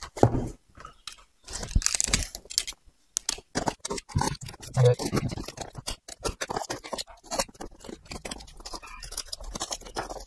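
A utility knife slitting packing tape on a cardboard box, with the tape and cardboard crackling and rustling in many short sharp clicks and crunches.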